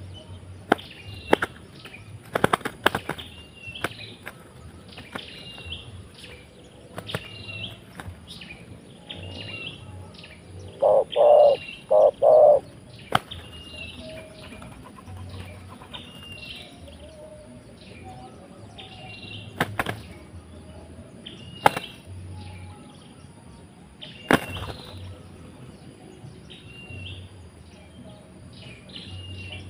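Two spotted doves fighting: wing-flapping, wing slaps and scuffling, loudest in a quick run of four about halfway through. The fight is a wild dove battling a trained decoy dove. A small bird chirps a short high call about every second and a half throughout.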